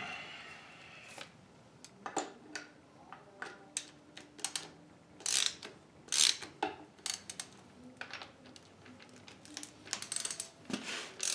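Ratchet wrench clicking in short, uneven runs while tightening the nuts on wedge anchors.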